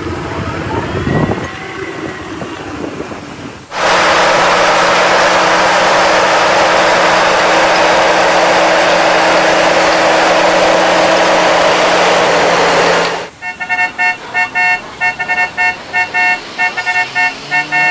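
A Caterpillar D11T bulldozer's diesel engine running loud and steady for about nine seconds, cut in and out abruptly. Then a tour bus's musical multi-tone horn plays a rapid pulsing tune, several chords a second.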